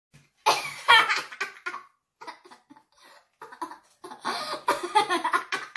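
A young girl laughing in several bouts with short breaks between them.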